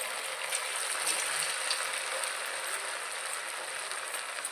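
Potato pakoras frying in hot oil: a steady sizzling hiss with small crackles.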